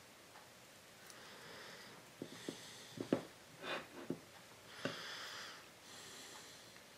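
Light clicks and taps of a table knife and banana pieces against a dinner plate as a peeled banana is sliced lengthwise and the strips are laid on bread. There are about half a dozen clicks between two and five seconds in, with soft hissy noise between them.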